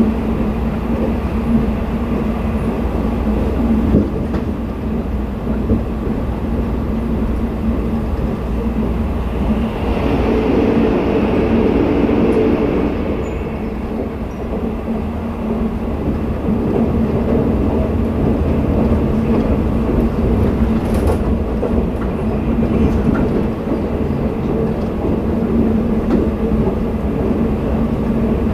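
Twilight Express sleeper train running at speed, heard from inside a passenger car: a steady rumble of wheels on rail with a constant low hum. The noise grows louder for a few seconds about ten seconds in.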